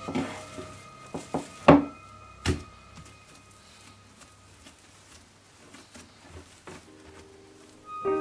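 Soft bread dough and a wooden bowl knocking and thumping on a wooden table, several thumps in the first few seconds as the dough is turned out. Then quiet rubbing and a few faint taps as the dough is rolled into a log by hand.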